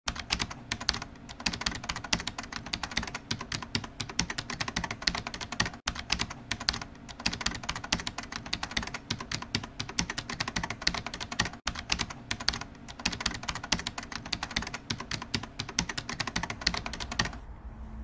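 Rapid keyboard typing, a dense clatter of key clicks several a second with two brief breaks, stopping abruptly near the end.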